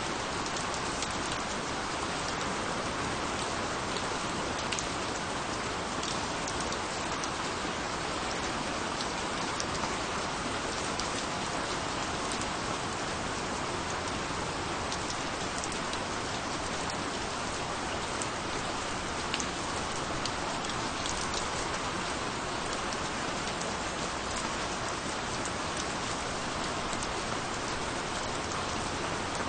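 Steady rain falling on a surface, an even hiss with many small drop ticks.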